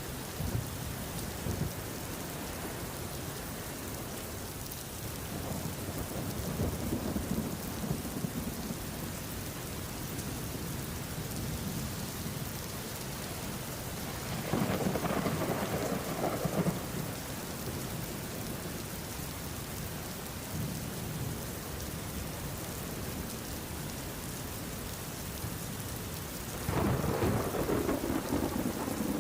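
Steady rainfall with thunder rolling in twice, a louder rumble about halfway through and another near the end.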